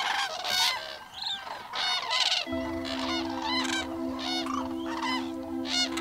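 A flock of common cranes calling, many loud trumpeting calls overlapping one another. A held music chord comes in underneath about halfway through.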